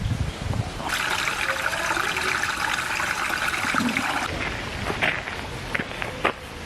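Running water, a steady hiss lasting about three seconds, followed by a few light clicks and knocks.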